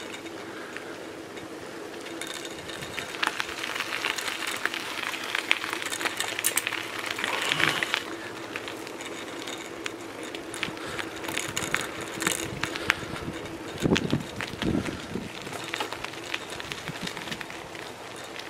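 Bicycle being ridden along a rough, patched tarmac lane: steady tyre and riding noise with frequent rattles and clicks over the bumps, louder in a couple of stretches.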